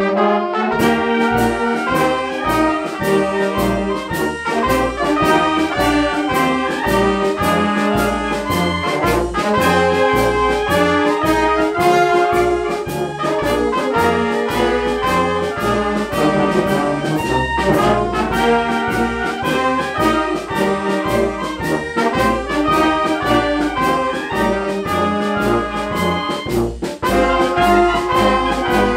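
Military wind band playing: trumpets, trombones and clarinets together over a steady beat.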